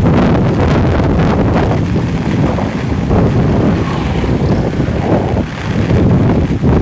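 Wind buffeting the microphone: a loud, uneven rumble that rises and falls.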